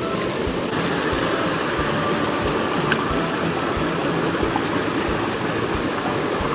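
Creek water rushing steadily over small rocky cascades, with a low rhythmic thump about two or three times a second from the spinning reel being cranked to retrieve the lure. One sharp click comes about three seconds in.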